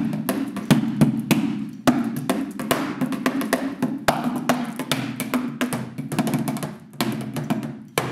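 Wooden drumsticks playing a quick, steady drum rhythm on cardboard boxes used as drums, the hits dull and boxy with louder accented strokes every second or so.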